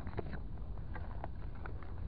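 Steady low rumble of harbour background noise with a few faint clicks and taps.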